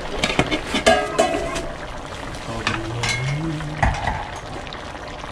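Clinks and knocks of metal cooking utensils and a pan lid against an electric wok of simmering stew, most of them in the first two seconds, some ringing briefly.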